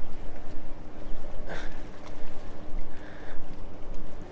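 Wind rumbling and buffeting on the microphone over a faint steady low hum, with two brief higher sounds about a second and a half and three seconds in.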